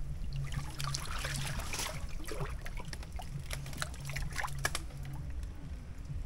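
Shallow water sloshing and trickling, with irregular small splashes and clicks, as someone moves through it among palm stems.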